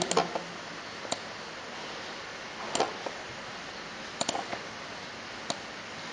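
Computer mouse clicking, a scattered series of short sharp clicks about a second or more apart, as anchor points are placed with Photoshop's pen tool, over a faint steady hiss.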